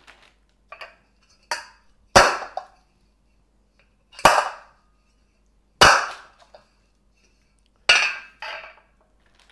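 Metal mini muffin tin dropped upside down again and again onto parchment paper on a stone counter, to jar out frozen chocolate cups that are stuck in it. About five sharp metallic knocks one to two seconds apart, with a few lighter taps between them.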